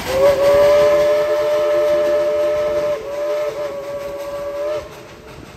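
Steam whistle of the Dollywood Express steam locomotive No. 192 sounding one long blast of several notes together, about five seconds, a little quieter in its last couple of seconds before cutting off.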